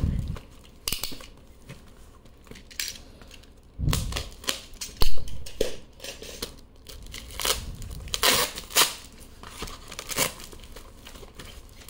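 Product packaging being handled and unwrapped by hand: irregular crinkling, rustling and tearing, with a few dull thumps and one sharp knock about five seconds in.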